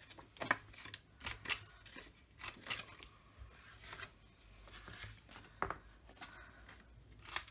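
Handheld corner punch clipping the corners of paper cards: a series of sharp snipping clicks, several seconds apart or in quick pairs, with paper handled in between.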